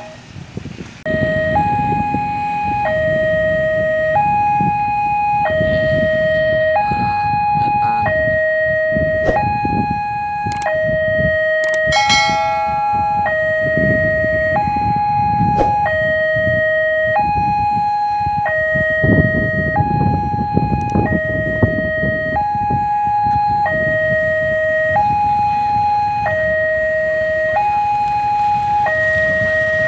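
Railway level-crossing warning alarm sounding a two-tone signal, alternating between a higher and a lower tone about once a second, while the crossing is closed for an approaching train. Road traffic rumbles underneath, with a short burst of sound about twelve seconds in.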